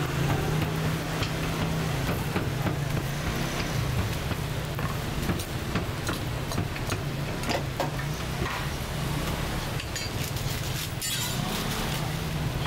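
A steady low mechanical hum with scattered sharp clicks and clinks.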